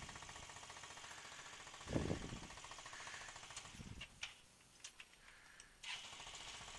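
Yamaha Vino scooter engine idling faintly and evenly, with a brief louder low burst about two seconds in. The engine cuts out about four seconds in, a few light clicks follow, and it starts again and idles near the end.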